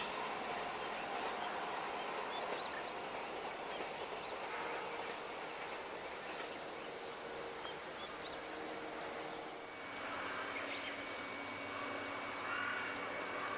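Steady rural ambience of summer insects droning, with scattered short bird chirps.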